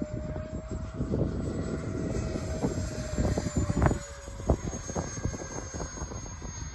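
A 70mm electric ducted fan on a Freewing F-35 Lightning II model jet whining in flight. Its steady pitch dips slightly about four seconds in. Wind buffets the microphone with a low rumble and sharp thumps throughout.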